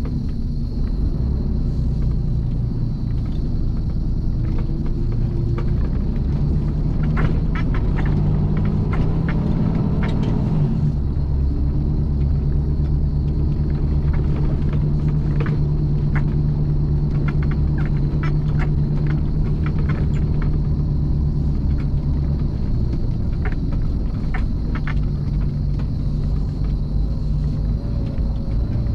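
Mercedes Actros truck's diesel engine pulling steadily, heard from inside the cab, with frequent short rattles and knocks from driving a rough quarry track. The engine note rises and then drops back about eleven seconds in.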